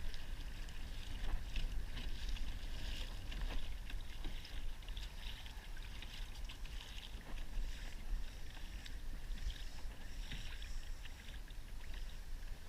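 Water lapping and splashing against a Hobie Outback kayak's hull as it moves, with many small irregular splashes, over a steady low wind rumble on the microphone.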